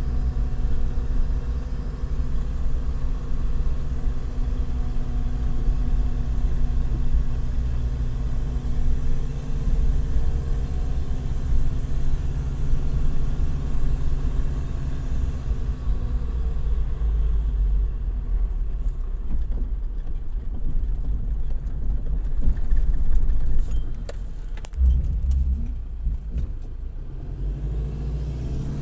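Nissan Patrol GU's newly reconditioned ZD30 four-cylinder diesel engine running as the truck drives slowly over a rough dirt track, heard from inside the cab over a low rumble. About halfway through the engine note drops back, leaving the rumble with scattered knocks and rattles from the bumps.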